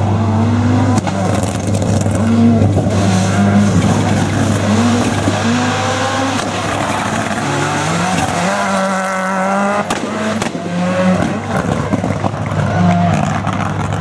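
Ford Escort WRC rally car's turbocharged four-cylinder engine revving hard through gear changes, its pitch rising and dropping again and again as the car is driven fast around a corner, with one long climb in revs about eight seconds in.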